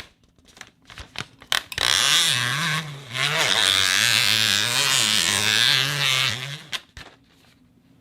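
Packaging material, styrofoam or an air cushion pack, rubbed and squeezed for foley. It gives a few light clicks and taps, then a long, loud, buzzy squeak whose pitch wavers up and down before it stops.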